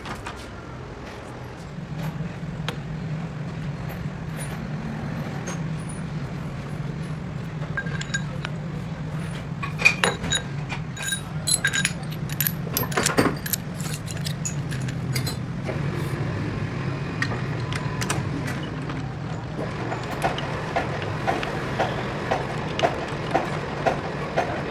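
Low, steady hum of a metal lathe running, starting about two seconds in. Sharp metal clinks come from about eight to fourteen seconds in as steel parts and tools are handled. Near the end there is a regular ticking at about two a second.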